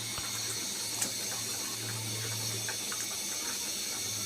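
A steady hissing noise with a low hum underneath and a few faint light ticks.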